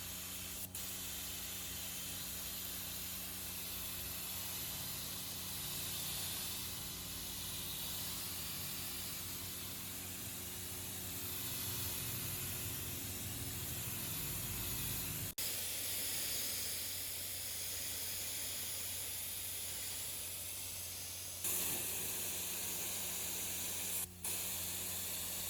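HaiJing S-710 air paint spray gun spraying, a steady hiss of compressed air with a low steady hum underneath. The sound breaks off sharply twice, about fifteen seconds in and near the end.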